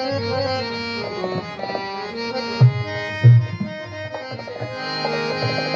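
Harmonium playing a melodic introduction to a ghazal, its reeds holding sustained chords under a moving melody. Two deep tabla strokes sound a little past the middle, about two-thirds of a second apart.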